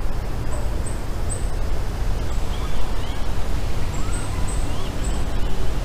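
Small birds singing along a wooded creek: short, scattered chirps and brief high whistled notes, over a steady low rumble.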